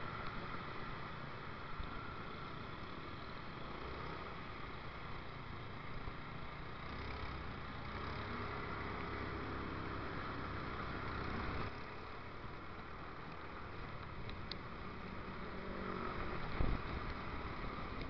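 Motorcycle engine and road and wind noise while riding in slow traffic, muffled by the action camera's waterproof housing. A steadier low engine note holds from about 7 to 12 seconds in, and there is a single thump near the end.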